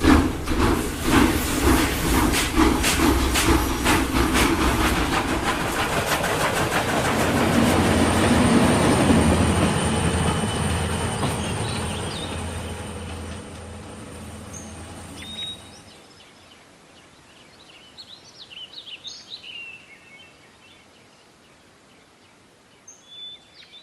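Train running fast on rails, a rapid, even clatter of wheels that fades away over the first half. Then a quiet stretch with a few faint, short high chirps.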